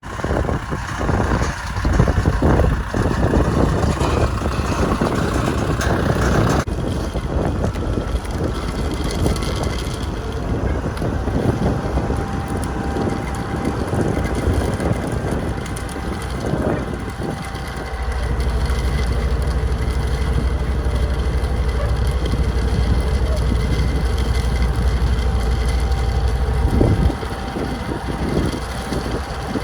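Heavy farm machinery engines running while drain tile is being laid. The sound changes abruptly about six seconds in, and from about eighteen seconds a steady low engine drone takes over.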